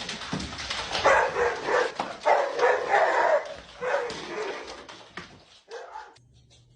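A dog barking and yipping: about half a dozen short pitched calls, dying away near the end.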